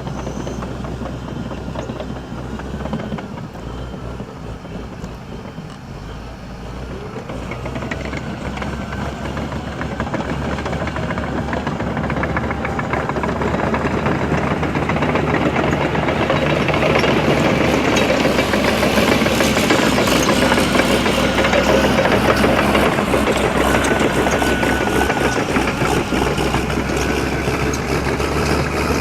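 A vehicle's engine running steadily, growing louder over the first half and staying loud to the end.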